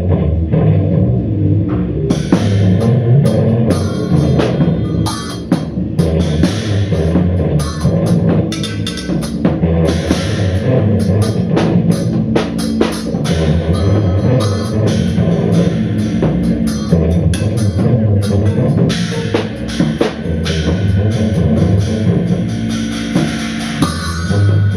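Live instrumental band music: a drum kit with cymbals and bass drum playing over sustained guitar and low bass notes. The drums and cymbals come in about two seconds in.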